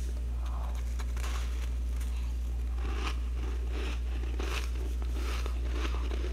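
Freezer frost crunching and crackling in a string of short scrapes as it is dug loose and gathered, over a steady low hum.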